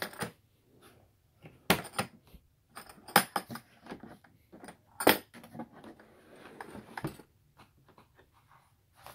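Metal latches on a blow-molded plastic tool case snapping open, then the hard plastic lid knocking and clattering as it is lifted open. A string of sharp clicks and knocks, with a softer rustle of handling in the middle.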